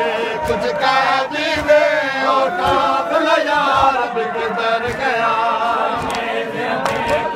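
Crowd of men chanting a Punjabi noha in unison, with sharp slaps of hands striking chests in matam at intervals.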